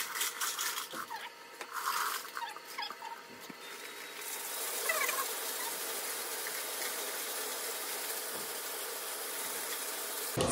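Loose coins clinking as they are tipped into a QuickChange coin-counting machine, which then runs steadily from about four seconds in while it sorts and counts them.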